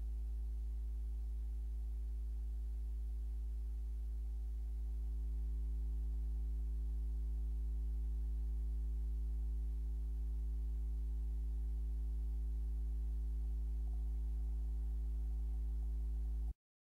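Steady low electrical hum with several evenly spaced overtones, getting slightly louder about five seconds in and cutting off abruptly just before the end.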